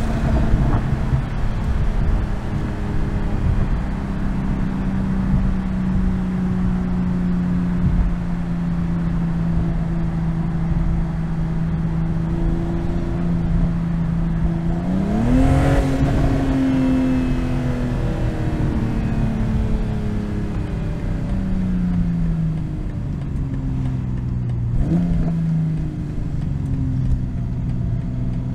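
BMW M240i's 3.0-litre turbocharged B58 inline-six running at a steady cruise, over tyre and road noise. About halfway through the revs climb sharply, then fall away in steps, and climb quickly once more near the end.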